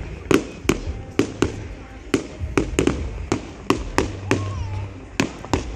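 Fireworks display: a rapid, irregular string of sharp bangs from shells bursting overhead, about three a second.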